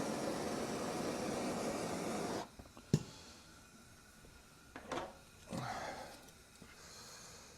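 Heat gun blowing steadily while it softens the end of plastic tubing, shut off suddenly about two and a half seconds in; a sharp click follows, then faint handling and rustling of the tubing.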